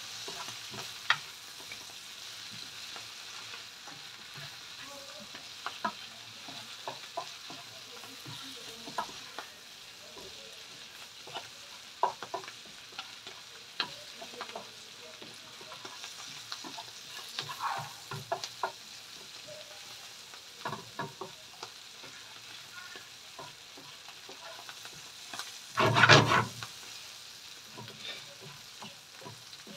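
Fresh spinach wilting in a frying pan, sizzling softly while a wooden spoon stirs it, with scattered taps and scrapes of the spoon on the pan. A louder clatter lasts about a second near the end.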